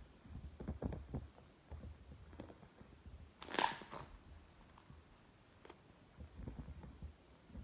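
Iceberg slime being pressed and squished by hand, its hardened top crust giving soft crunches and crackles, with one louder, sharper crackle about three and a half seconds in.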